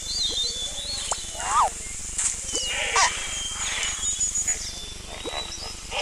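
Animal calls: high thin chirping whistles mixed with quick up-and-down squeals and short clicks.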